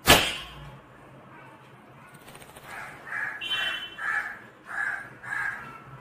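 A sharp click at the start, then a ring-necked parakeet giving a string of about six short, soft calls about a second apart, with one higher squeak among them.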